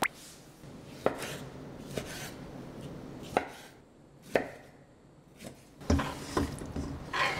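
A kitchen knife chopping ripe tomatoes on a wooden cutting board, one sharp knock of the blade on the board about every second. Near the end the chopped pieces are tipped off the board into a stainless steel pot, with a short cluster of knocks and soft thuds.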